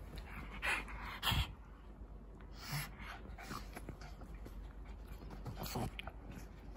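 A Shih Tzu and a pug play-wrestling: the dogs' panting breaths come in short, irregular bursts, the loudest about a second in.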